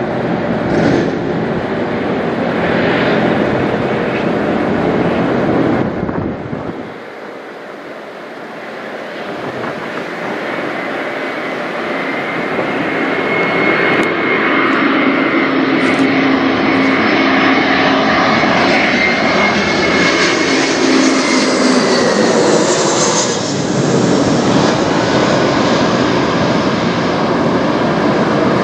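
Airbus A321-211 airliner's CFM56 turbofan engines passing low overhead on landing approach. The jet noise builds to a peak about three-quarters of the way through, with a high whine that drops in pitch as the plane passes.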